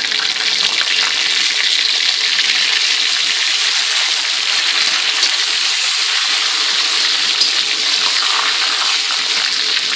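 Fresh curry leaves sizzling in hot oil in a wok with mustard seeds, cumin and dried red chillies: a steady, loud hiss of a tadka (spice tempering), with a spatula stirring through it.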